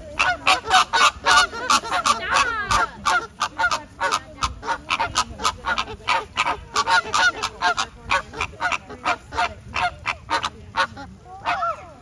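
A flock of birds calling, with many short, overlapping calls coming three or four a second.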